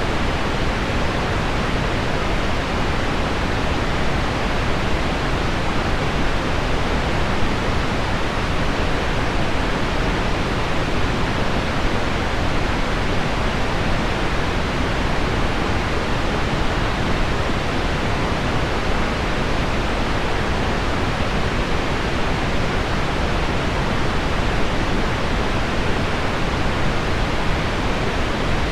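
Heavy rain on window glass mixed with low pink noise: a steady, even hiss with no breaks or separate events.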